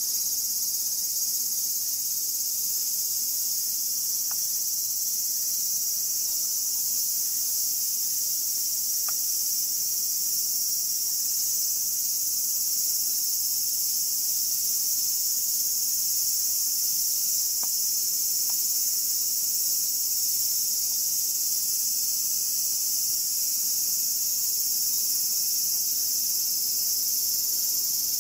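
Steady, high-pitched chorus of summer insects, an unbroken shrill hiss that holds an even level throughout.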